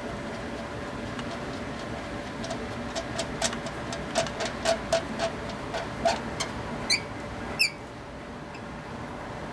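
A run of sharp, irregularly spaced metallic clicks and ticks from hand tools while a new spark plug is fitted, about a dozen over five seconds. A steady faint hum runs underneath.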